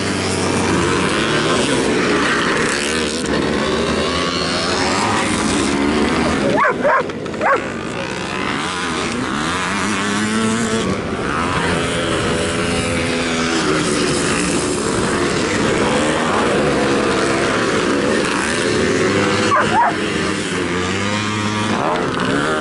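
Vintage motocross motorcycles racing, their engines revving up and down through the gears. There are a few sharp louder blips about seven seconds in.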